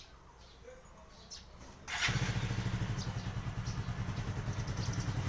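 Motorcycle engine, faint at first, comes in loud about two seconds in and runs steadily with an even pulsing beat.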